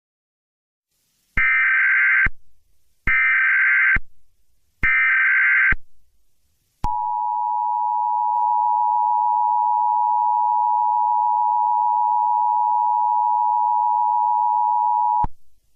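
Emergency Alert System tones: three short bursts of SAME header data, each just under a second, then the steady two-tone EAS attention signal held for about eight seconds before cutting off. Together they announce that an emergency alert message follows.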